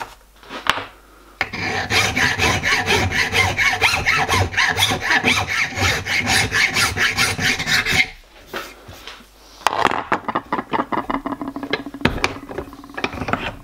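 Hand file scraping across the edge of a thin hardened steel plate held in a bench vise, in quick repeated strokes. It is filing the plate down to a scribed line. A long run of strokes stops about eight seconds in, and after a short pause a second run follows.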